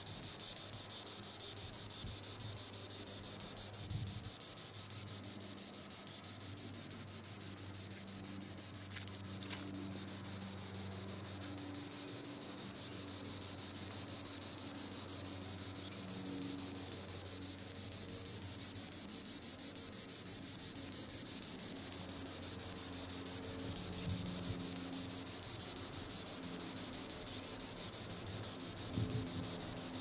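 Green Annual Cicadas (Tibicen linnei) singing in the treetops: a continuous high, shrill buzz. It swells and eases slowly, dipping somewhat in the first third, then rising again before easing near the end.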